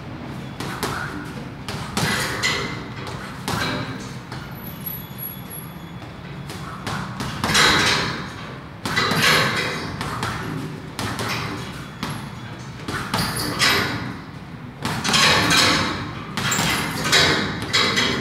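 Boxing gloves punching a hanging punching bag: irregular thuds and slaps, some in quick flurries of several blows, over a steady low hum.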